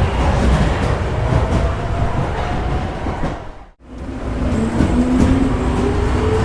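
Subway train pulling away: a steady low rumble with a faint rising whine. The sound drops out sharply a little past halfway, then fades back up.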